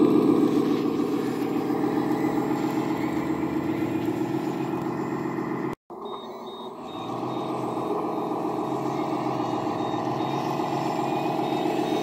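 RC Volvo A40G articulated dump truck running steadily under load. After a brief dropout about six seconds in, it reverses with a faint, regularly repeating high beep.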